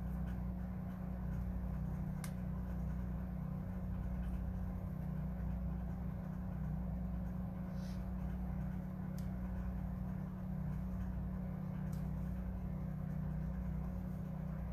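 Steady low mechanical drone, like a motor running without a break, which she guesses is outdoor tree work, someone sawing a tree. A few faint clicks sound over it.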